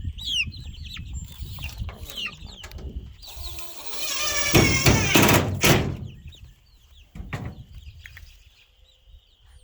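Baby chicks peeping with quick falling chirps in the first second or so. Around the middle comes a loud harsh noise lasting about two seconds, with a short knock a little later.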